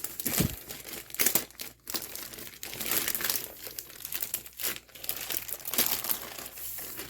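Packaging bag crinkling and rustling irregularly as a laptop display panel is slid out of it, with a dull bump about half a second in.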